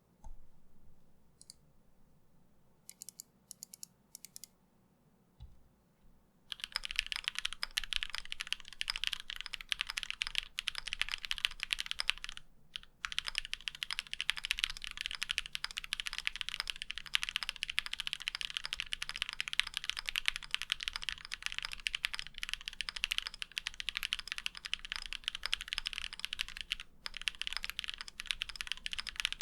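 Typing on a mechanical keyboard fitted with GMK Cherry-profile double-shot ABS keycaps. A few scattered keystrokes come first, then continuous fast typing from about six seconds in, with two brief pauses.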